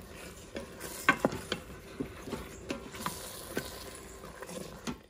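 Wooden spoon stirring chunks of beef through thick berbere-and-tomato sauce in a stainless steel Instant Pot inner pot: irregular knocks and scrapes of the spoon against the pot over a faint sizzle from the hot sauce.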